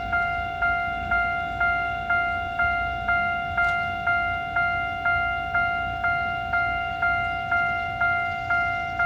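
Level crossing warning alarm with its special bell-like tone, struck about twice a second, each stroke fading into the next without a break: the crossing signal warning that a train is approaching.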